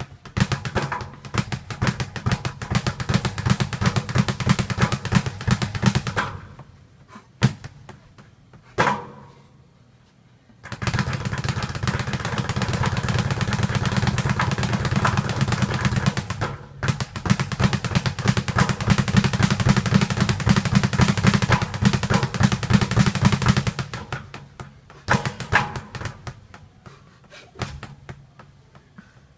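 Speed bag being punched in fast, rhythmic runs of rapid rattling strikes against the rebound board. One run stops about six seconds in. After a few single hits and a short pause, a long run starts around eleven seconds in, breaks briefly near the middle, and ends with a few scattered hits.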